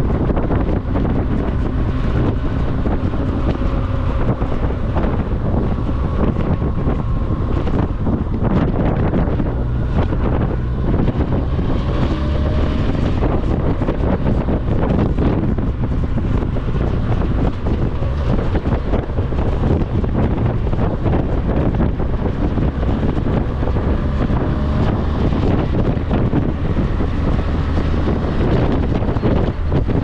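Strong gusty wind buffeting the microphone during a ride, a dense steady rumble. Underneath it is a faint whine that drifts slowly up and down in pitch.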